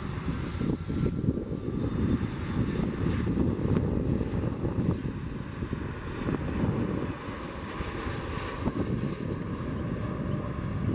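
Jet engines of a Boeing 737 MAX 8, its CFM LEAP-1B turbofans, on final approach to landing: a steady, low rumble.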